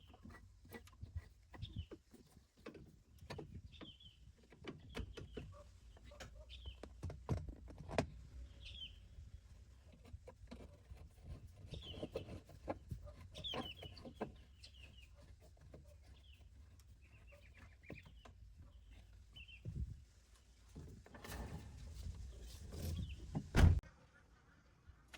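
Repeated short bird chirps mixed with scattered clicks and knocks of work, with one loud knock near the end.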